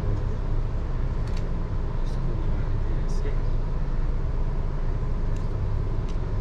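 Steady low rumble of outdoor background noise, with a few faint light clicks from small items being handled.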